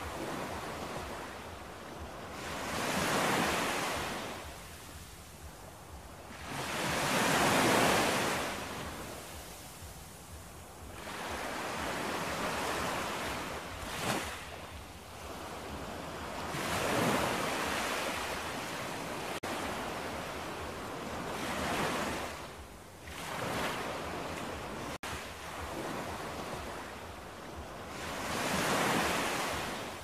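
Ocean surf: waves breaking and washing onto the shore, swelling up and falling away in surges every four or five seconds.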